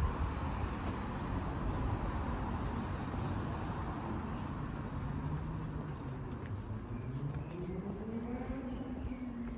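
Road traffic: a steady low rumble with a vehicle engine whose pitch dips, then rises and holds higher near the end, as it pulls away.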